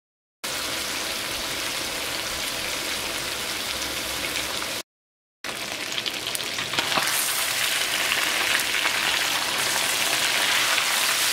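Marinated chicken pieces shallow-frying in hot oil in a wok, a steady sizzle with fine crackling, fried to about three-quarters done. The sound begins after a moment of dead silence and breaks off briefly about five seconds in. It grows louder and more crackly from about seven seconds.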